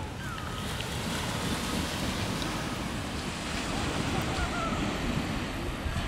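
Small waves breaking and washing up on a sandy beach, a steady surf hiss, with wind buffeting the microphone.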